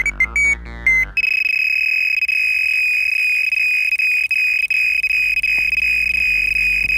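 Electronic carp bite alarm: a few quick beeps in the first second, then one continuous high-pitched tone, the alarm screaming as a carp takes line on a run.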